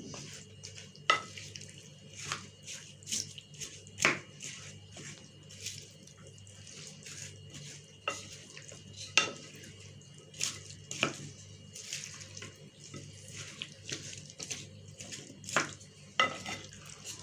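Potatoes, onion and chicken being mixed with a yogurt sauce and oil in a bowl: wet stirring sounds with irregular sharp clicks and knocks.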